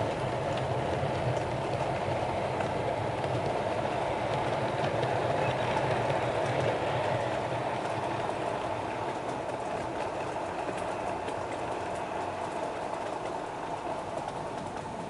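Model passenger train rolling along the layout's track: a steady rumble with faint clicks, slowly fading in the second half as the coaches draw away.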